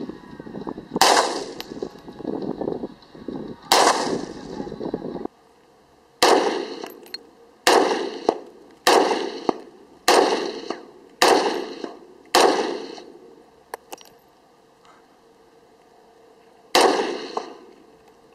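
Rifle shots from an SKS semi-automatic rifle, each a sharp crack with a short ringing tail. Two shots about three seconds apart, then a run of six shots roughly a second apart, and one more after a pause near the end.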